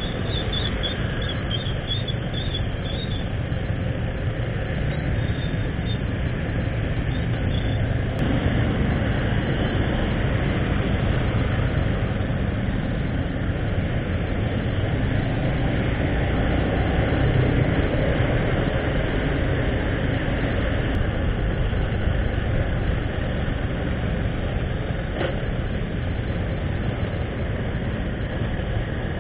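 Steady street traffic heard from a moving motorbike: an even rumble of engine and road noise, with heavy low wind noise on the microphone and no sudden events.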